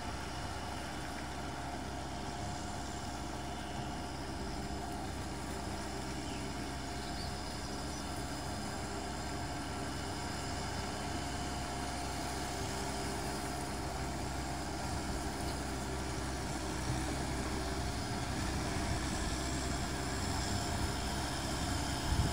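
Kubota M6040SU tractor's four-cylinder diesel engine running steadily as it pulls a cultivator through paddy mud, heard from a distance and growing slowly louder as the tractor comes closer.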